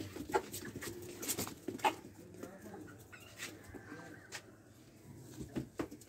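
Desi chickens clucking softly, with scattered sharp taps, the loudest in the first two seconds.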